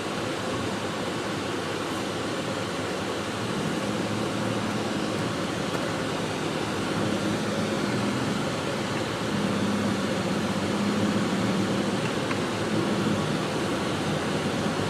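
Steady road and engine noise inside a Jeep's cabin while it drives on a snowy road, with a low engine drone that grows a little stronger about halfway through.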